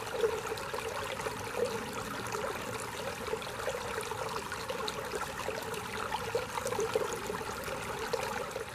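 Shallow creek running over stones: a steady gurgling and trickling of water.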